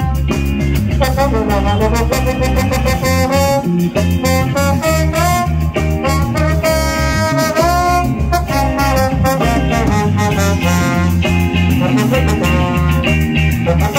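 Live reggae band playing. A trombone carries the melody, with a downward slide and back about two seconds in, over electric guitar, drums and a heavy, steady bass line.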